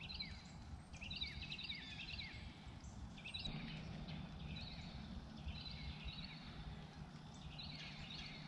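Small birds chirping in short clusters of quick, high notes, about one cluster a second, over a low steady background rumble.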